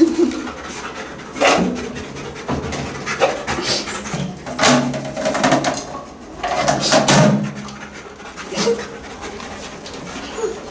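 Police drug-detection dog panting, with irregular short sniffing and rustling bursts.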